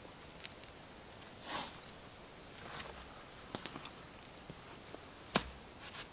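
Small campfire crackling with scattered sharp ticks and pops, a short breathy hiss about one and a half seconds in, and a solid wooden knock a little after five seconds as a log is set down by the fire.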